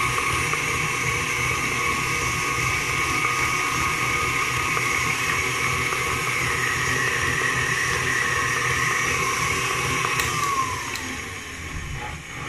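KitchenAid Artisan stand mixer running at medium-high speed, beating cake batter in a stainless steel bowl: a steady motor whine. About ten seconds in it is turned down, and the whine falls in pitch and gets quieter as the motor slows.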